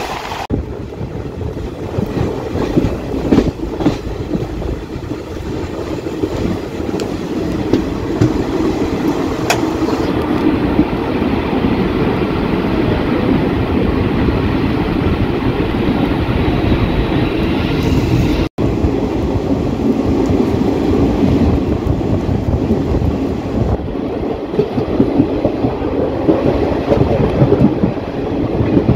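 Passenger train coaches running at speed, heard from an open doorway: a steady rumble and rattle of wheels on rail, with a few sharper clacks. The sound drops out for an instant about two-thirds of the way through.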